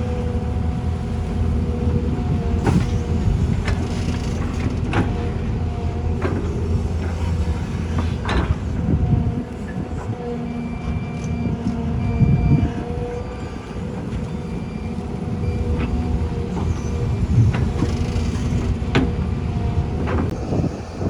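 Diesel engines of an excavator and dirt-hauling trucks running steadily, with scattered sharp metallic clanks and knocks. The engine rumble drops briefly about nine seconds in, then builds again.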